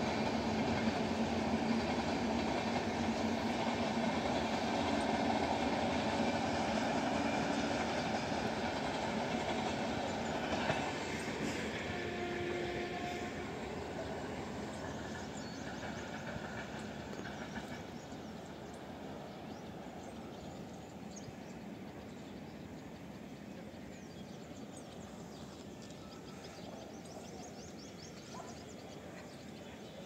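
A train running on the rails: a steady rumble, loudest at the start and fading gradually, with a couple of short whines partway through.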